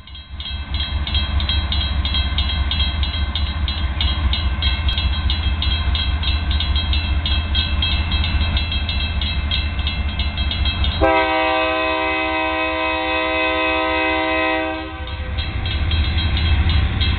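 Union Pacific freight train's diesel locomotives approaching with a deep steady rumble and a quick regular ticking. About eleven seconds in, the locomotive's air horn sounds one steady blast of about four seconds.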